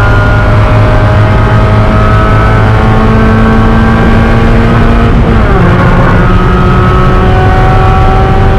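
Spec Miata's four-cylinder engine running loud at full throttle, its pitch climbing slowly as the car accelerates. About five seconds in the pitch drops sharply at an upshift, then climbs again.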